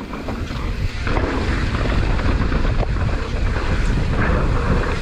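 Mountain bike running fast down a dirt trail: wind buffeting the microphone over the steady rumble of tyres and the rattle of the bike on braking bumps, with a few short knocks.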